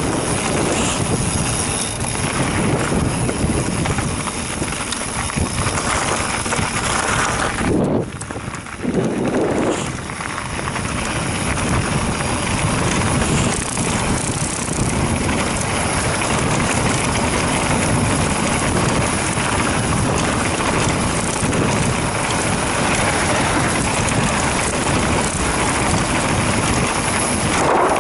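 Mountain bike rolling fast down a rough dirt trail: wind rushing over the bike-mounted camera's microphone along with tyre and frame rattle from the ground. The rush drops briefly about eight seconds in, then picks up again.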